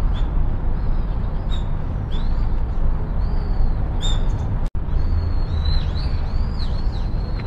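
Small birds chirping in short calls over a steady low outdoor rumble, with a quick run of chirps in the second half. The sound cuts out for an instant just past the middle.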